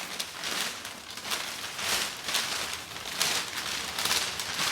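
Hands rummaging through a cardboard box full of foam packing peanuts, an irregular run of rustling and crinkling scrapes.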